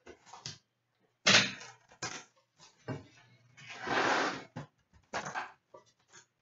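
Cardboard hockey card boxes being handled on a glass tabletop: a few sharp knocks as boxes are set down and shifted, the loudest about a second in, and a brief rustling scrape about four seconds in as the box is slid and handled.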